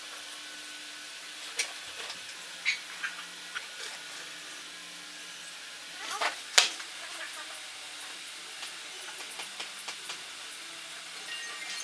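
Light knocks and clicks of hand tools, a steel ruler and a wooden gauge block, being handled and set down on a wooden workbench, the loudest about six and a half seconds in, over a faint steady hiss.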